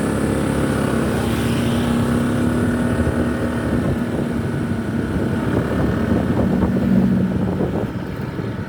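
Tour bus engine running steadily as the bus drives, with road and wind noise. The engine's pitch holds fairly even, rising a little near the end.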